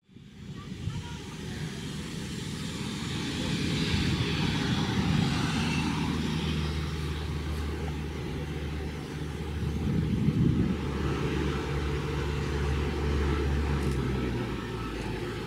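Jet engines of a Boeing 737-800 on final approach, a steady low drone that fades in at the start and swells twice, about four and ten seconds in, with a faint thin whine late on.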